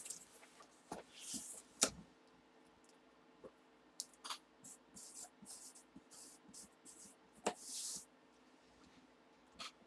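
Faint handling noises: scattered light clicks and taps with a few short rustles, as hands move objects and packaging on a table.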